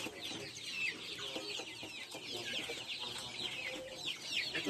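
A flock of young chickens peeping continuously, many short high falling calls overlapping, with a few lower clucks mixed in.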